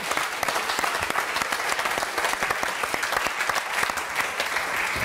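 Studio audience applauding: many hands clapping together in a steady, dense patter.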